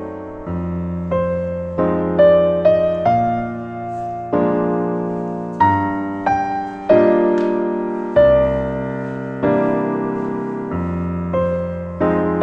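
Background piano music: a slow melody of single struck notes and chords, each ringing and fading before the next.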